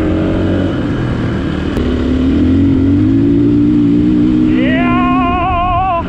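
Husqvarna 501 single-cylinder four-stroke dirt bike engine running steadily under way, its pitch rising a little about two seconds in. Near the end a held, wavering high note comes in over it.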